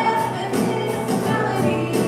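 Church music: voices singing a gospel-style song over instrumental accompaniment.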